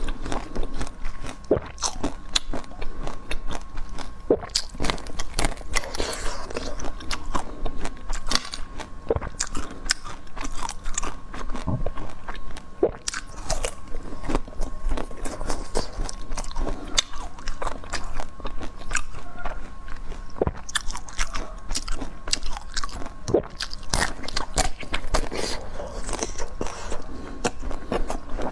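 Close-miked crunching, biting and chewing of crisp food: a dense, irregular run of sharp crunches.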